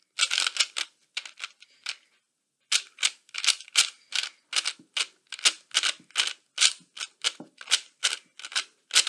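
YJ Yulong 3x3 speed cube being turned by hand during a solve: a rapid run of plastic clicks and clacks as the layers turn, about three a second, with a brief pause about two seconds in.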